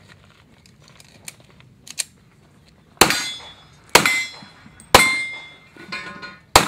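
Pistol fired one-handed in aimed shots about a second apart: four loud reports plus a weaker one, starting about three seconds in, several followed by a metallic ringing. Before the shooting come a couple of light clicks.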